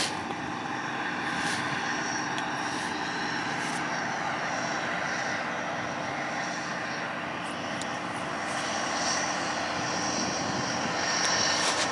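Steady drone of farm machinery engines running close by, with a few faint, brief scrapes as a plastic push-out rod slides the silage core through the metal sampling probe.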